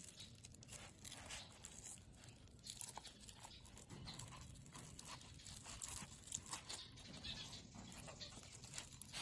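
Faint handling noises: stalks of lemongrass or green onion being worked into the mouth of a whole raw fish. These come as scattered soft crackles and ticks of stalk and skin against fingers and a wooden board.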